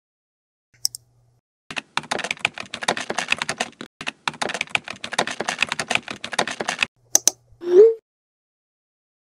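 Rapid typing on a computer keyboard, in two runs of quick keystrokes with a brief pause between them. A single click comes before the typing and another after it, and a short rising tone sounds near the end.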